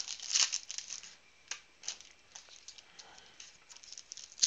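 Foil trading-card pack wrappers crinkling as they are handled. A cluster of crinkles comes in the first second, then a few single ones, a quieter stretch, and more crinkling right at the end.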